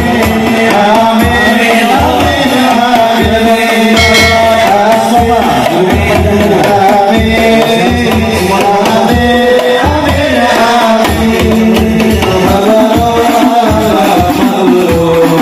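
Hadroh ensemble performing sholawat: men singing in unison into microphones over a continuous beat of rebana frame drums.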